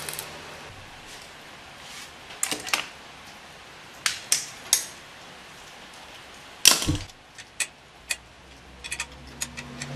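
A welding arc's crackle cuts off at the very start, then scattered sharp metallic clicks and knocks as metal parts and hand tools such as locking pliers are handled, with one louder clatter about seven seconds in.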